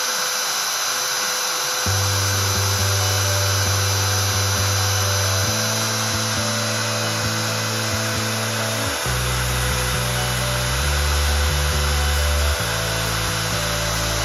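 CNC router spindle running with a small end mill cutting 3 mm aluminium sheet: a steady high-pitched whine with cutting hiss. Background music with low held chords comes in about two seconds in.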